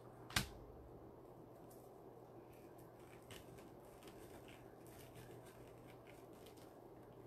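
Quiet crafting handling: one sharp click about half a second in, then faint scattered rustles and light ticks as deco mesh and a feather boa are worked onto the flower board. A steady low fan hum runs underneath.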